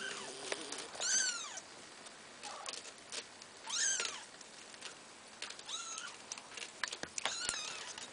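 Month-old Maine Coon kittens mewing, about four high-pitched cries that rise and fall, with faint taps between them. They are crying for food: still hungry after being fed.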